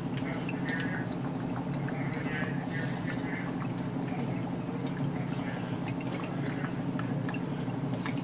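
Soy sauce being poured from its bottle into a measuring cup: a faint trickle of liquid in short spells, over a steady low hum.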